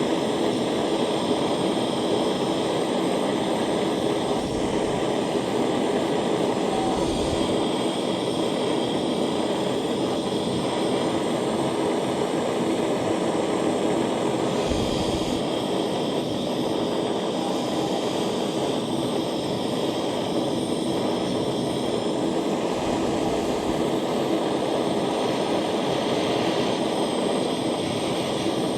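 Jeweler's soldering torch flame burning steadily with an even rushing hiss while heating a ring's solder joints.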